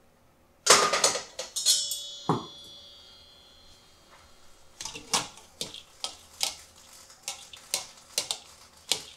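Metal kitchenware clattering. A sharp clash just under a second in sets a metal bowl ringing for a few seconds, then comes a run of light taps, about two a second, as the fish heads and bones are handled while being scalded with boiling water.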